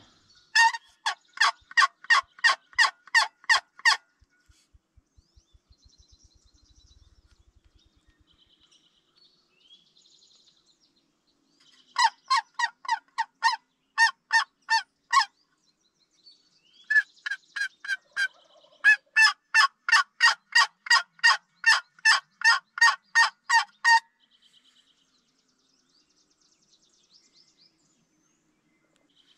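Turkey call worked by the hunter: loud runs of evenly spaced yelps, about three notes a second. It comes in three bouts, the last one the longest at several seconds, calling to the gobblers.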